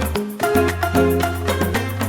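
Background music with a quick, even percussive beat over a steady bass and pitched melody notes, in a Latin dance style.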